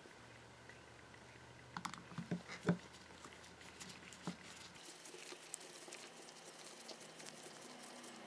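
Screwdriver driving a small screw into a hand drill's metal housing, giving small metallic clicks and taps: a cluster about two seconds in, another near the middle, then faint rapid ticking.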